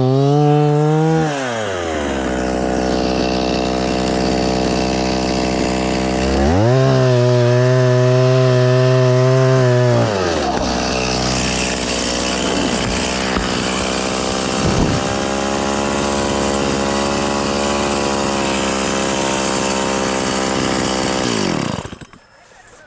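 Two-stroke chainsaw engine revving, dropping to a low idle, revving up again for a few seconds, then idling until it is shut off near the end.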